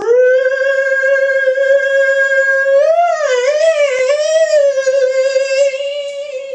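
A man singing one long, high, mock-operatic note, held steady at first, then wavering in a wide vibrato about three seconds in before settling again.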